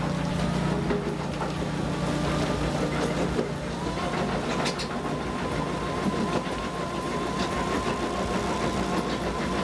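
MB jaw crusher bucket on a tracked excavator crushing concrete rubble over the excavator's steady diesel engine and hydraulic hum, with crushed pieces knocking and clattering as they fall onto the pile. A steady high whine joins about four seconds in.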